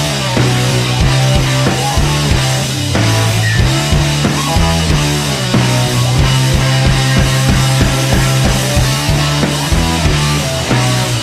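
Background rock music with drums, guitar and a steady driving bass line.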